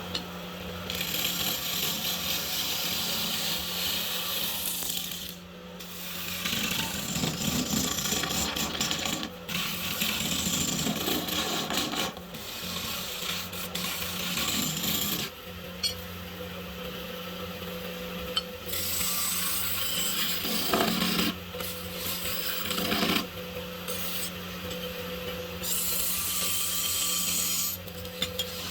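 A tool rasping and rubbing on wood in stretches of a few seconds with short breaks between them, over a steady low hum.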